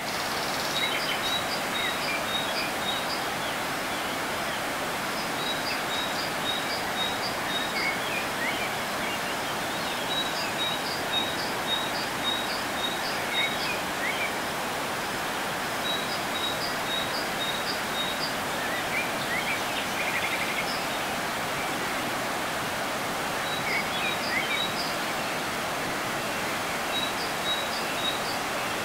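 Water rushing steadily through a dam's open sluice gates and churning down the spillway. Over it, a bird calls in runs of short high chirps that repeat a few times a second, stop and start again.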